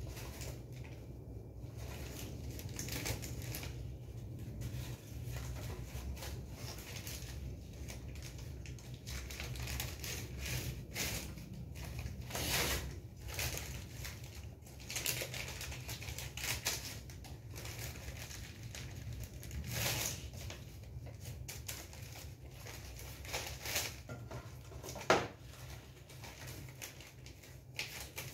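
Facial tissues rustling and crinkling in irregular bursts as hands pull them from a tissue box, crumple and fold them. One sharp click near the end is the loudest sound.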